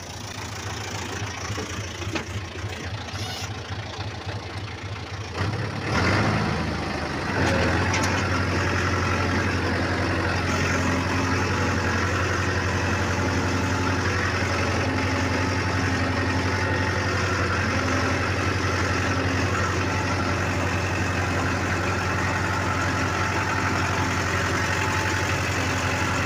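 John Deere 5078E tractor's three-cylinder turbo diesel running while pulling a disc harrow through the soil; the engine speeds up about six seconds in, then runs steadily and louder under load.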